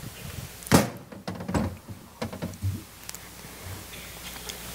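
A door thunks shut about three-quarters of a second in, followed by a softer bump and a few light knocks.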